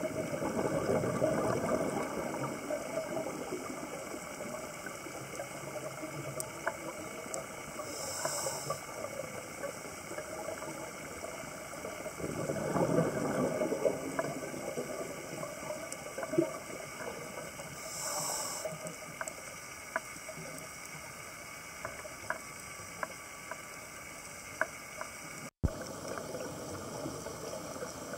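Underwater sound of a scuba diver's regulator: long rumbling swells of exhaled bubbles near the start and again about twelve seconds in, and short high hisses of inhaling about eight and eighteen seconds in. Scattered sharp clicks run underneath.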